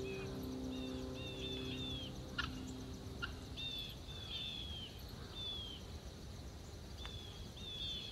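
Held notes of background music fading out over the first few seconds, while a bird repeats short down-slurred call notes in quick runs of two to four. There are two sharp clicks near the middle, and a faint steady chirping of insects throughout.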